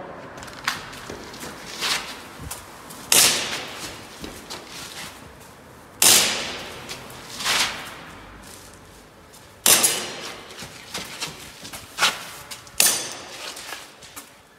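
Airsoft pistol shots fired one at a time a few seconds apart: about four loud, sharp cracks, each with a short echo, and softer knocks and footsteps between them.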